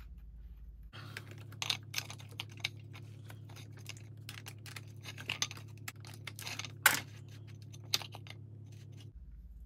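Irregular light metallic clicks and ticks as a cutting disc, its flange nut and a pair of pliers are handled on an angle grinder's spindle, with one sharper, louder click about seven seconds in.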